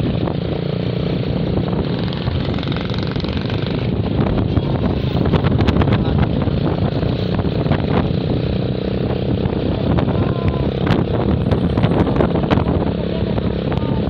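Motorcycle engine and road noise heard from the bike while riding steadily in traffic, with scattered sharp clicks from about four seconds in.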